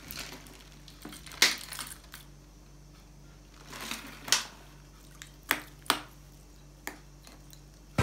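Metal spoon clinking and knocking against a ceramic bowl while butter is worked and washed in cold water: several sharp, separate clinks, a second or so apart.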